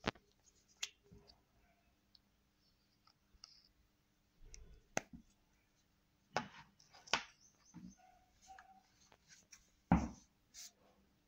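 Scattered light clicks and knocks of small plastic paint pots and a paintbrush being handled on a wooden table, the loudest about ten seconds in.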